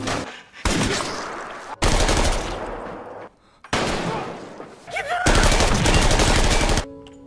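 Several sharp pistol gunshots from a film soundtrack, each starting suddenly and ringing on for about a second. A man gives a short yelp about five seconds in.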